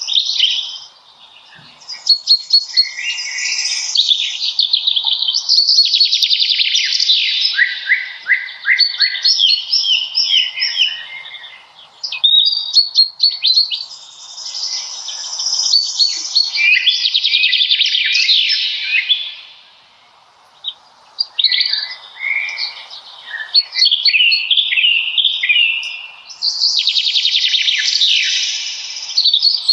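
Songbirds singing in a forest: long phrases of rapid, varied warbling notes, each running several seconds, with short pauses between them.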